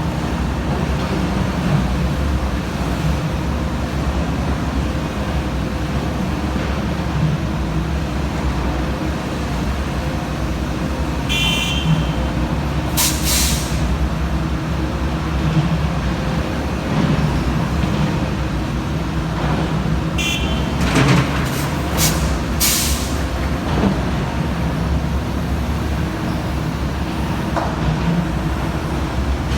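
Komatsu PC350-7 excavator's six-cylinder diesel engine running steadily under a low rumble. A few short, loud hisses from the machine come around halfway through and again later, each just after a brief squeal.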